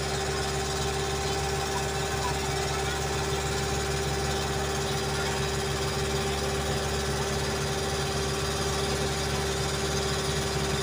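Boat engine running steadily while the boat cruises, an even mechanical drone with a constant pitch throughout.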